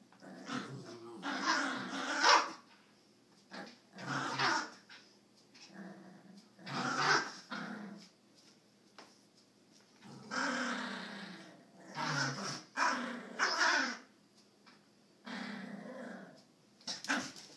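Two small dogs play-fighting, growling and barking in repeated short bursts.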